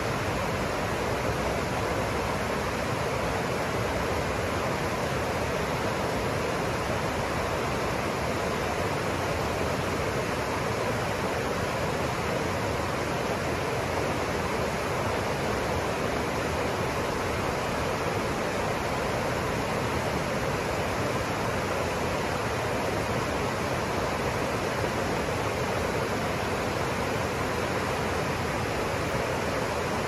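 Caldera River rushing over a rocky bed in white-water rapids: a steady, even roar of water.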